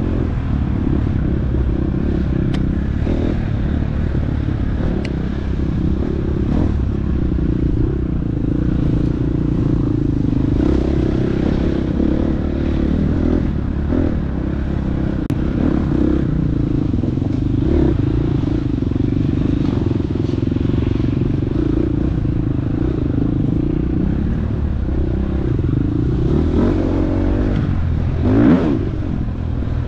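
Dirt bike engine running hard under throttle, its pitch rising and falling as the rider works the throttle, with a sharp rev near the end.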